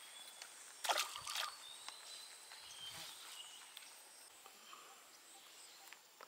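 A short splash in pond water about a second in, against a steady high-pitched insect buzz and a few faint chirps.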